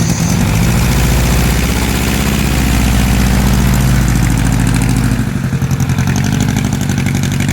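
World War I airplane's piston engine running with its propeller turning, a loud, steady multi-tone drone. Its deepest rumble drops away about five seconds in.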